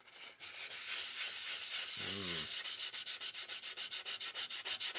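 220-grit sandpaper rubbed by hand over the copper shell of an antique fire extinguisher, scouring at green verdigris. The rubbing is scratchy and settles into quick, even back-and-forth strokes in the second half.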